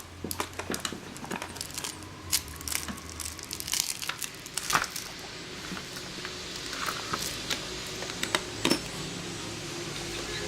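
Irregular clicks, taps and rustles of a small alarm clock being handled and fiddled with by a child; no alarm ringing.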